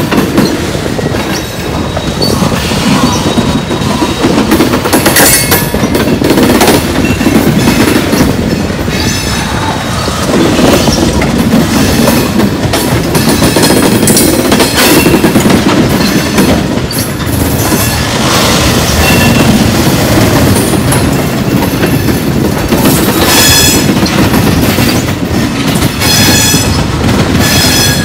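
Loaded freight gondolas rolling past on steel rails: wheels rumble and clack over the rail joints. Brief high-pitched wheel squeals come and go several times, most often in the second half.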